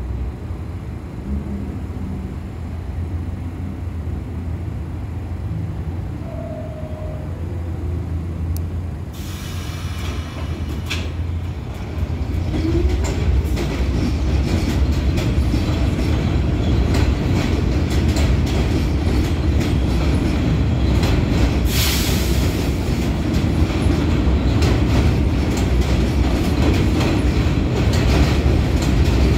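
R46 subway train starting off from an elevated station. A steady low hum at first, then from about ten seconds in the louder rumble of the cars gathering speed, with the wheels clacking over rail joints.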